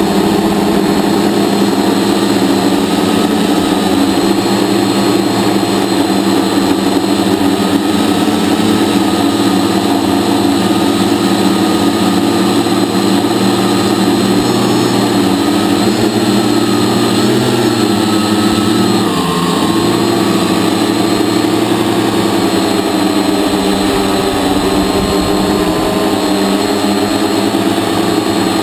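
Hexacopter's electric motors and propellers whining steadily, heard close up from the craft itself. The pitch wavers throughout and dips briefly about two-thirds of the way through.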